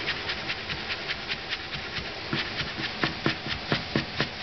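Cleaver chopping fresh ginger into fine shreds on a plastic cutting board: a fast, even run of knife knocks, about four to five a second, louder from about halfway through.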